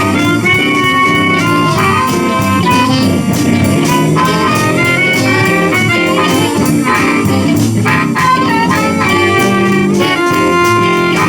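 Live blues band playing the uptempo instrumental intro of a jump-blues number. A held, reedy lead line rides over electric guitars, bass and a steady drum beat.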